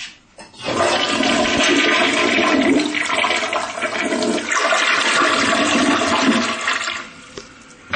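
Kohler toilet flushing: a steady rush of water into the bowl and down the drain, starting about a second in and dying away near the end.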